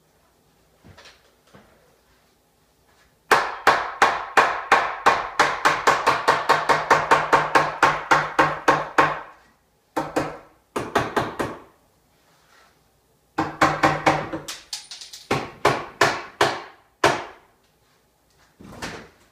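Hammer blows knocking an oversize wooden king post snugly into the wall framing: a fast run of strikes, about five a second, lasting several seconds, then shorter runs of strikes.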